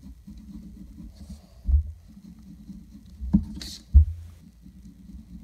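A sheet of drawing paper being handled and turned on a desk: a few dull thumps and one short rustle over a steady low hum.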